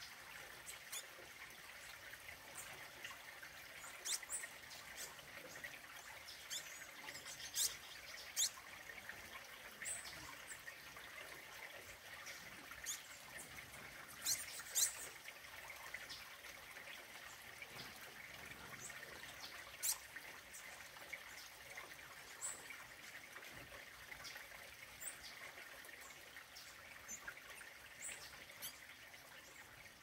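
Songbirds giving short, sharp high chips and calls every second or few seconds, over a steady background hiss.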